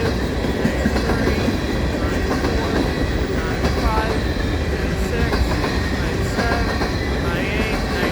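Freight cars of a slow mixed freight train rolling past with a steady rumble and clatter of wheels on the rails. Short high wheel squeals come and go, with a cluster of them near the end.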